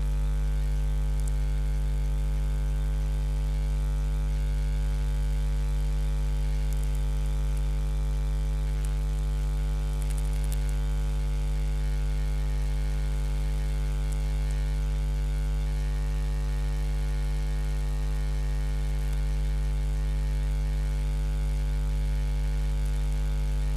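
Steady electrical hum with a stack of evenly spaced overtones, strongest in the low range and unchanging in pitch and loudness.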